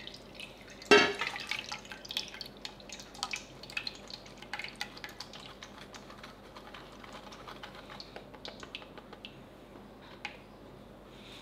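Batter pouring and straining through a fine mesh sieve into a stainless-steel bowl while a silicone whisk is worked in the sieve, giving many small irregular ticks, drips and scrapes. A sharp knock about a second in; the ticks thin out over the last few seconds.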